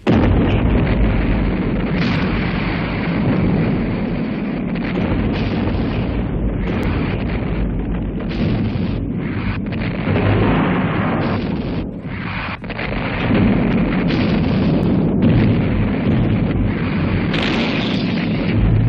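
Artillery bombardment: heavy guns firing and shells bursting in a dense, near-continuous rumble that starts abruptly.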